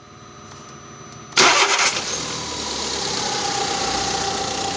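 VW Saveiro engine cranked and catching about a second and a half in, then running at a steady idle on its freshly fitted timing belt. A thin steady whine joins the running about three seconds in.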